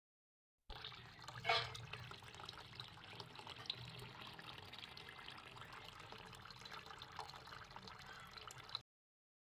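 Tap water running from a faucet through a faucet-mounted water filter into a sink, a steady faint splashing with one louder splash about a second and a half in. It starts and cuts off abruptly.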